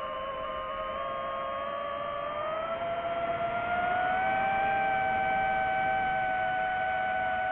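FPV quadcopter's motors whining as several steady tones, the pitch climbing about two to four seconds in as the throttle rises, then holding high.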